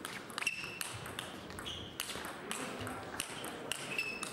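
Table tennis rally: the ball clicking off the rackets and bouncing on the table in a quick back-and-forth, about two to three hits a second, many hits with a short high ping.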